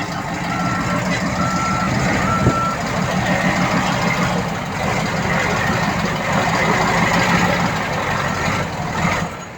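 Backup alarm on heavy earthmoving equipment beeping three times, about one beep a second, then once more near the end, over the steady running of a diesel engine.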